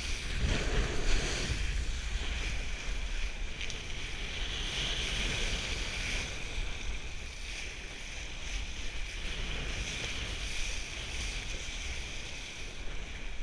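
Wind buffeting the microphone with water rushing and splashing under a kiteboard riding over choppy water, a steady low rumble and hiss.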